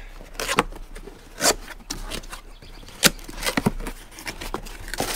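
A cardboard parts box being handled and opened: irregular taps, scrapes and rustles of the cardboard flaps, with a sharper click about three seconds in.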